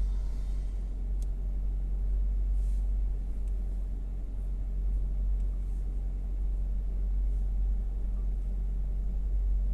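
Suzuki Swift Sport ZC32S's 1.6-litre four-cylinder engine running steadily, a low even rumble with no high-pitched whine. There is one short click about a second in.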